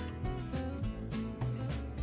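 Background instrumental music, a run of short notes.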